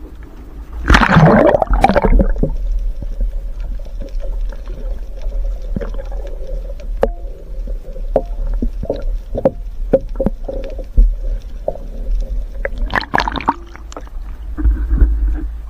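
Splash as the camera plunges under the sea about a second in, then muffled underwater sound: a low rumble of water against the camera with scattered clicks and knocks. A second splashing burst comes near the end.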